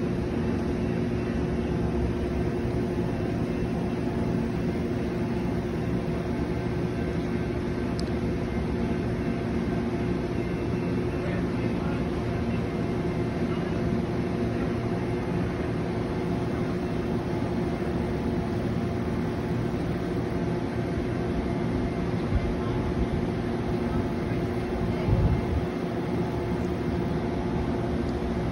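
Amtrak passenger train moving slowly past at low speed: a steady mechanical drone with a constant low hum. A brief low thump comes about 25 seconds in.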